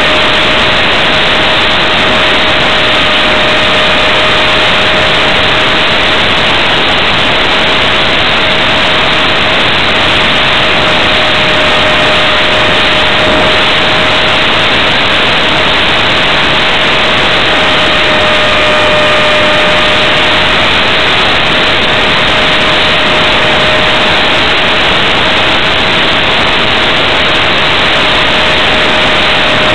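F-27C Stryker RC flying wing's electric motor and pusher propeller whining at one steady pitch under loud, constant wind rush on the onboard camera's microphone, the plane cruising at an even throttle.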